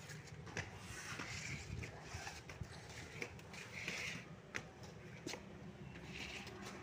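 Faint footsteps climbing stairs, with scattered light clicks and clinks from a steel cooking pot and the utensils stacked on it as they are carried.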